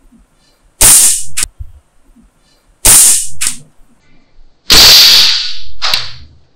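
Three loud gunshot bangs, about two seconds apart. Each is followed about half a second later by a shorter, sharp crack.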